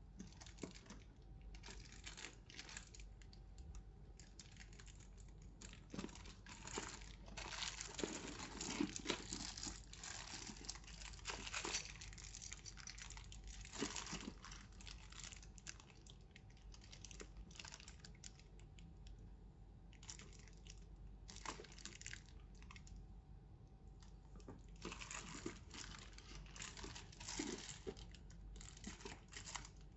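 Packaging wrapping being handled, crinkling and rustling in irregular handfuls with sharp crackles, busiest about a quarter of the way in and again near the end.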